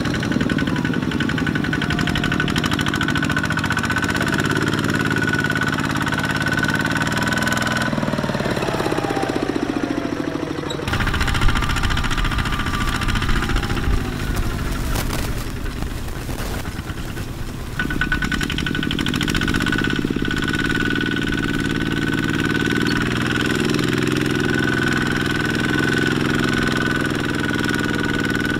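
Single-cylinder diesel engine of a Kubota two-wheel walking tractor chugging under load as it drags a trailer through deep mud, its speed rising and falling. In the middle it runs rougher and deeper for several seconds, with a few sharp knocks.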